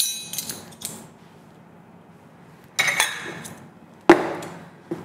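Stainless steel measuring spoons on a ring jangling and clinking, then scraping and clinking in a plastic tub as a spoonful of cornstarch is scooped out, with a sharp knock just after four seconds in.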